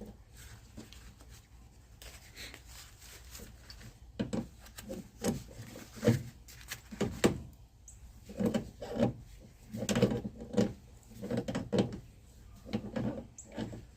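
Close handling noise: quiet at first, then from about four seconds in a run of short, irregular rubbing and scraping sounds, roughly two a second.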